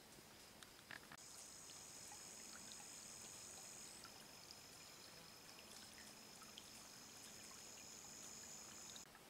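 Faint forest ambience: a steady, high-pitched insect buzz starts about a second in and cuts off near the end, over a soft hiss.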